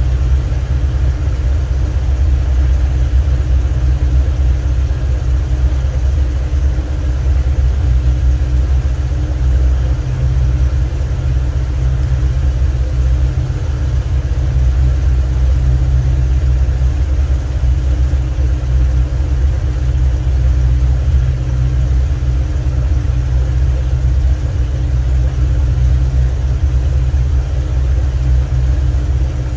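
Birchwood 22 river cruiser's engine running steadily under way at cruising speed, heard from inside the cabin: an even low drone with a steady hum above it.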